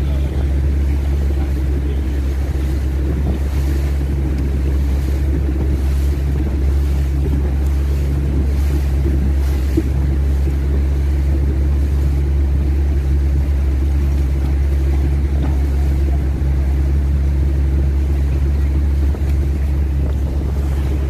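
Boat engine running steadily underway: a constant low drone with rushing water and wind noise over it.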